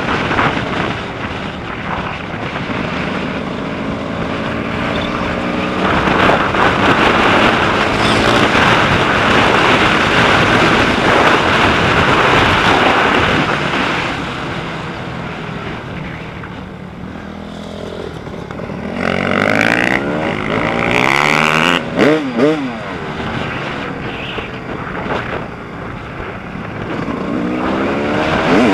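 Dirt bike engine running under way, its revs rising and falling as the bike is ridden. The pitch climbs in strong sweeps about two-thirds of the way through and again near the end.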